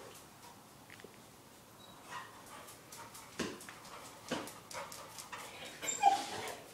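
Young springer spaniel giving short excited whimpers and yips in scattered bursts, the loudest a little after six seconds in, while chasing a cat under a car; light clicks from its movement between them.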